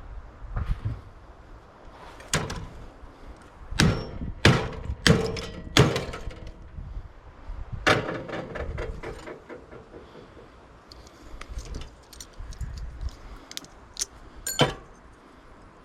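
Metal knocks and clanks from a microwave's sheet-metal housing and parts being worked apart by hand, some strikes ringing briefly. About five loud knocks come bunched together early on, one more follows shortly after, and lighter clicks and rattles come later with a last sharp knock near the end.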